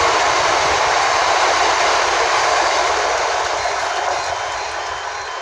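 Passenger train running past the platform, a loud steady rush of wheel and running noise that slowly fades toward the end.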